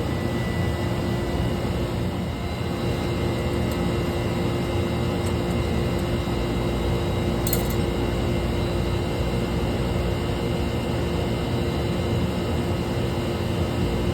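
Steady drone of running machinery with a constant hum, and a brief light click about halfway through.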